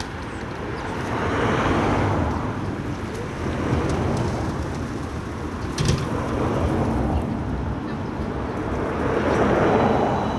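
Road traffic: vehicles passing by, their noise swelling and fading about two seconds in and again near the end, with a single sharp knock near the middle.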